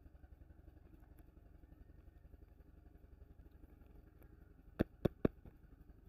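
Three quick sharp taps on the lid of a hard plastic chocolate tub, close together about a second before the end, over a faint low steady rumble.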